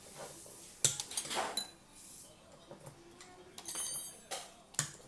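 Tableware being handled on a table: dishes and cutlery knocking and clinking several times. One clink near the middle rings briefly.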